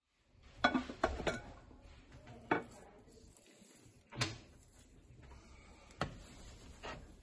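Handling of a glazed ceramic nukazuke pickling pot: several sharp knocks as the lid is lifted off, then a few more scattered knocks with soft scraping as hands dig in the rice-bran bed.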